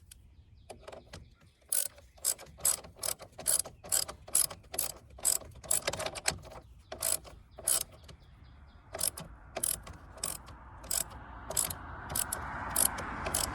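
Hand ratchet with a 10 mm socket clicking in a steady series, about three clicks a second with a short pause partway through, as it tightens the nut on the car battery's positive terminal clamp.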